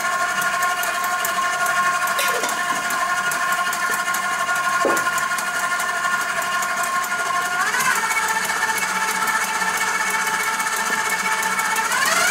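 KitchenAid stand mixer with its whisk attachment running in a steel bowl of cake batter: a steady motor whine with several pitches. The pitch briefly rises and settles about eight seconds in, and it starts to climb again at the very end.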